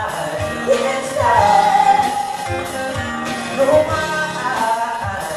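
A live pop band: a woman singing lead over an amplified acoustic guitar and a drum kit keeping a steady beat.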